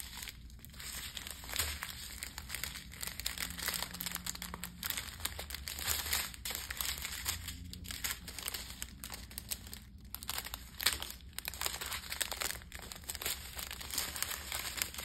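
Small plastic packets of diamond-painting drills crinkling and rustling as they are shuffled and lifted one after another, with a steady run of small crackles.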